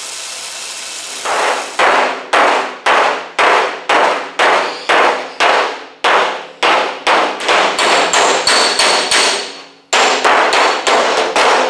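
Body hammer tapping on the bare sheet-steel roof of a 1964 Volkswagen Beetle, sharp blows at about two a second with a short ring of the panel and a brief pause near the end. The metal is being tapped out at a low spot that has just been heated with a torch and cooled with a damp sponge.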